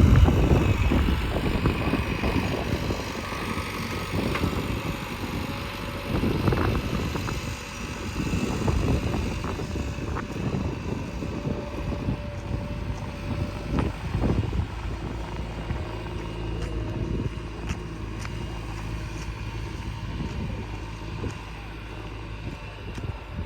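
Backhoe loader's diesel engine running while working, loudest near the start and then settling to a lower, steadier run, with a few short knocks.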